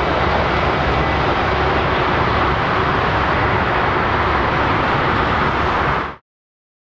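Airbus A320's two IAE V2500 turbofan engines running steadily at taxi power, a continuous jet roar with a faint whine. The sound cuts off suddenly about six seconds in.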